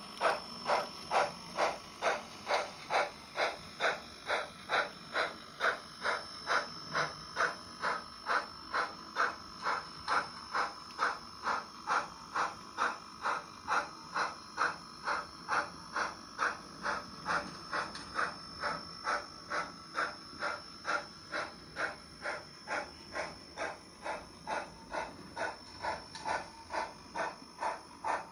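HOn3 model Colorado & Southern 2-6-0 Mogul steam locomotive's sound chuffing steadily, about two chuffs a second, as it hauls a train at a slow, even speed. A thin, steady high tone runs under the chuffs.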